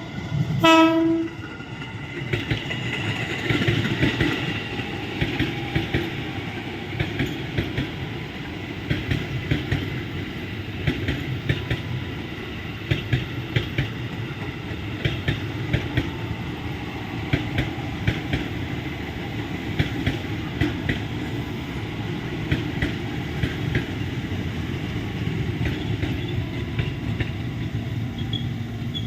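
A KRL Commuter Line electric train sounds one short horn blast just under a second in, then rumbles on with a steady run of clacks from its wheels over the rail joints as it runs into the station.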